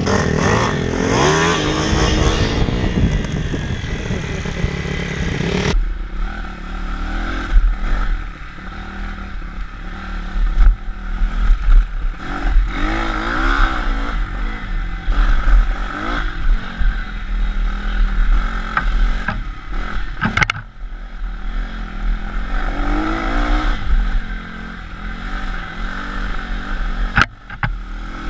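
Single-cylinder four-stroke pit bike engines revving hard, the pitch rising and falling as the throttle and gears change. After about six seconds the sound jumps to a bike being ridden over a rough dirt trail, with deep wind rumble on the helmet microphone and a few sharp clattering knocks from the bumps.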